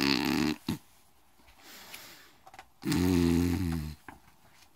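A woman imitating a bear's snoring with her voice: two loud snores about three seconds apart, the second low-pitched, with a soft breath between them.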